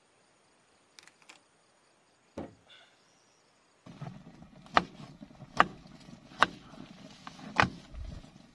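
A kitchen knife chopping yardlong beans on a plastic cutting board: sharp chops about once a second, starting about four seconds in. Before that it is nearly quiet, with a couple of faint clicks and a short thump.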